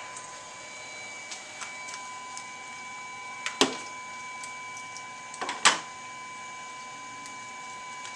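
A steady high electrical whine runs under scattered faint clicks, with two short loud rustles about three and a half and five and a half seconds in as a respirator mask is pulled off the face.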